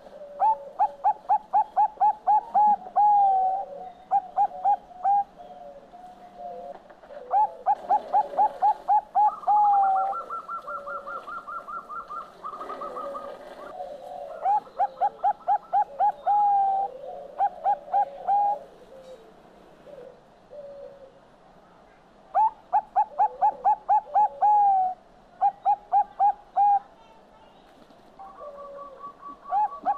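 Zebra dove (Bangkok perkutut) singing: phrases of quick, even staccato coos ending in a few slower notes, repeated about every seven seconds. A higher, faster trill comes between the second and third phrases.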